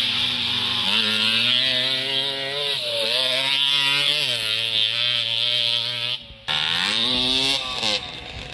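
A 50 cc motocross bike's engine revving up and down as it rides the track, its pitch rising and falling several times. It drops out briefly about six seconds in, then climbs again as the bike accelerates.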